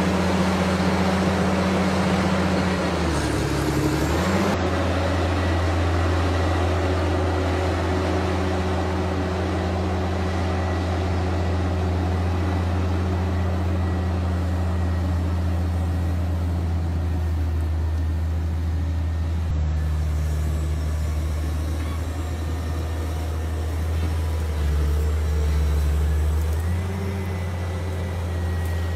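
Large Caterpillar tracked excavator's diesel engine working under load as the machine crawls and swings its boom. The engine note dips and recovers about three seconds in and shifts pitch a few more times later.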